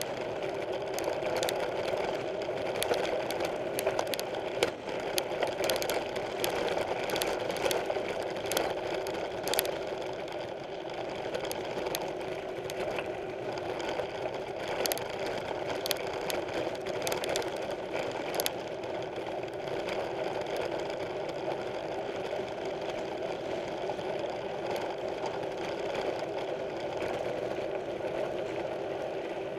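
Mountain bike rolling over rough trail: a steady mechanical whir with frequent sharp clicks and rattles, thickest in the first twenty seconds.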